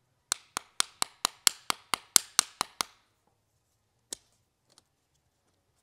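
A quick run of about a dozen sharp, evenly spaced clicks, about four a second, from the Taipan Veteran 2 air rifle's parts being worked by hand during reassembly, then a single click a little later.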